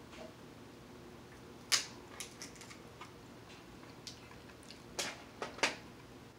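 Cooked king crab and mussel shells being cracked and pulled apart by hand. There are a few sharp cracks and clicks: the loudest a little under two seconds in, with a second group around five seconds in.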